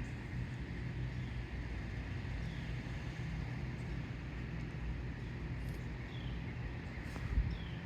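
Steady low engine rumble, with a few faint, short falling chirps of birds above it and one soft knock near the end.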